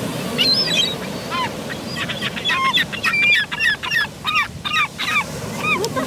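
Gulls calling: short, arched yelping calls, a few at first and then a quick run of about four or five a second from about two seconds in.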